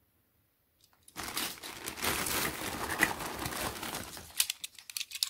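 Thin plastic bag crinkling and rustling as hands rummage through it among loose toy cars, starting about a second in and ending with a few sharp clicks.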